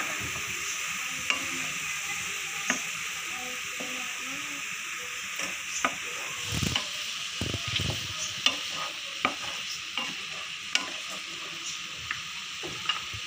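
Chopped tomatoes and garlic sizzling in a frying pan while a plastic spatula stirs them. Scattered sharp clicks and scrapes of the spatula on the pan come more often in the second half.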